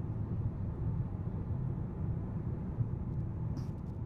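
Cabin noise of a 2018 Hyundai Elantra cruising at about 51 mph in sixth gear: a steady low rumble of the engine at about 1,800 rpm and tyres on the road, heard from inside the car.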